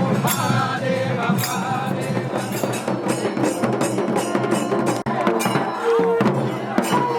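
Music with quick, even drum strokes, several a second, under a held, wavering melody line.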